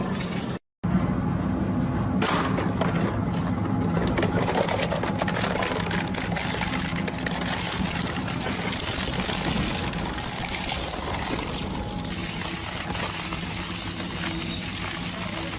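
Industrial crushing machine running steadily, grinding material, with a constant low hum under the crunching noise. The sound cuts out completely for a split second less than a second in.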